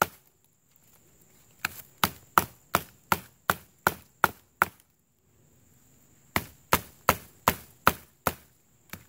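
Small Victorinox Classic keychain knife blade hacking into a green, freshly cut sapling stick: sharp wooden chops about three a second, two runs of eight or nine strikes with a short pause between.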